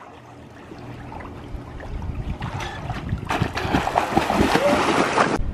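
Pool water splashing as children kick and jump in. The splashing builds, gets much louder about three seconds in, and cuts off suddenly near the end.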